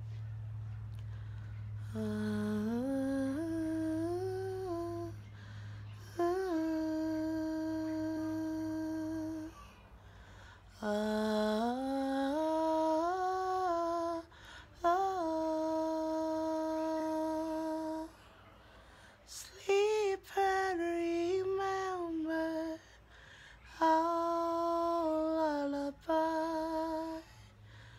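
A woman humming a slow lullaby to a baby, in short phrases of long held notes that step up and down, with brief pauses between the phrases.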